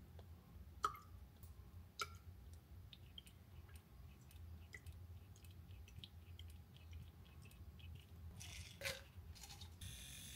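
Quiet handling sounds: faint clicks and taps of small glass supplement bottles, a dropper and a spray pump against a ceramic mug. The sharpest click comes about a second in and another at two seconds, with a couple of short hisses near the end.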